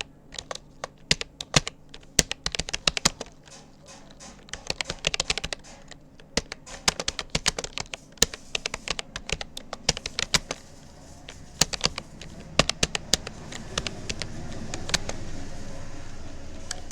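Typing on a Rapoo computer keyboard: irregular runs of quick key clicks with short pauses between words. A low background noise swells up in the last few seconds under the keystrokes.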